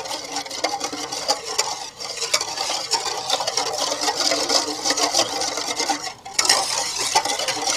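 A spoon stirring yeast, sugar and warm water in an enamel bowl, with quick scraping and clinking strokes against the bowl and a brief pause about six seconds in.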